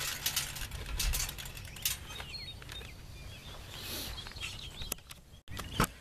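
Light metallic clicks and rattles of handling at the corn planter's galvanized seed hopper, thickest in the first two seconds, with small birds chirping in the background.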